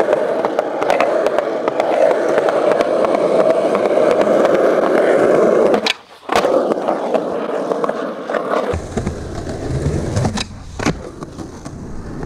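Skateboard wheels rolling steadily on a concrete sidewalk, then a short gap while the board is in the air for a flip trick over a drain gap, a sharp clack as it lands, and rolling again. Later a low rumble with a few sharp clacks of the board.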